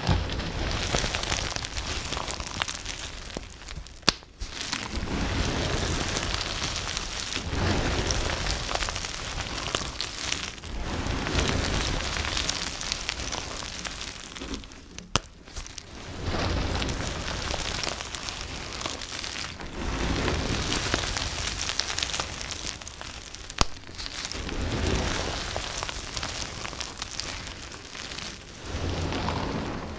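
A knife cutting through dry bar soap, a crunchy crackling in long strokes of a few seconds each with short pauses between. Two sharp clicks stand out, about four seconds in and again after about twenty-four seconds.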